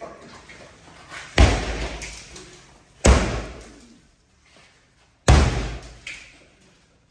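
Sledgehammer blows against a front door: three heavy bangs about two seconds apart, each dying away over about a second.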